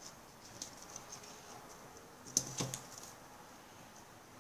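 Light clicks and taps from handling a small metal stapler with a rubber band and pen refill, with a louder cluster of knocks about two and a half seconds in.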